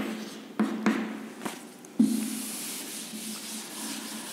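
A few short chalk strokes on a chalkboard as a number is written and underlined, then from about two seconds in a steady, hissing rub of a board duster wiping the chalkboard.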